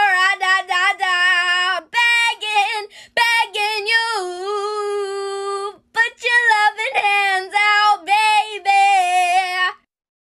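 A female voice singing a cappella in short melodic phrases with no accompaniment, cutting off abruptly near the end.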